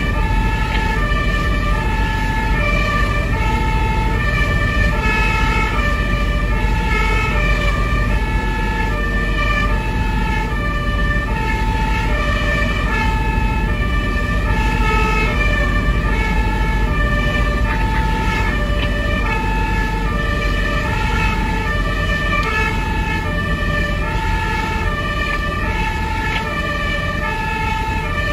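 German two-tone fire engine siren (Martinshorn, "tatütata") alternating between a high and a low note in a steady repeating cycle, over the low rumble of the moving vehicle's engine and tyres.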